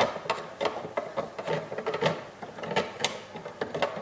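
A Bakelite radio cabinet being handled: a run of irregular clicks and taps of hard plastic, several a second, with some rubbing.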